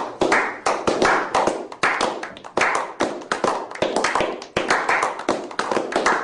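A small group of people clapping their hands in steady applause, about three claps a second.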